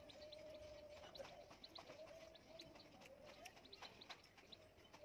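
Near silence, with a few faint snips of hair-cutting scissors and faint, repeated high bird chirps.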